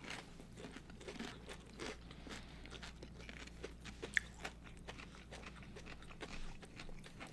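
Chewing a crunchy dill pickle close to the microphone: a run of small crisp crunches, with one sharper tick about four seconds in.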